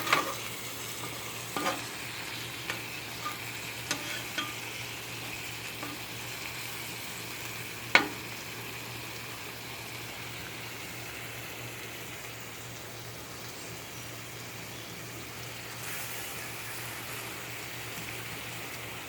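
Burgers and vegetables sizzling steadily on a hot gas griddle, with a few sharp clicks, the loudest about eight seconds in.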